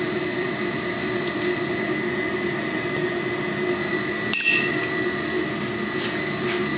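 A steel round-nose punch is set down on the anvil with a single sharp metallic clink and a brief ring, about four seconds in. A steady background hum runs throughout.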